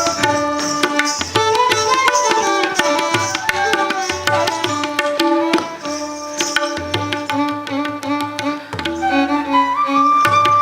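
Instrumental Indian classical dance accompaniment in Carnatic style: a hand drum playing quick, dense strokes under a melodic instrument that moves in sliding phrases.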